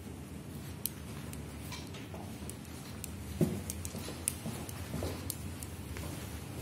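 Steady low room hum with scattered faint clicks and a few soft knocks from someone walking with a handheld phone, the loudest knock about halfway through.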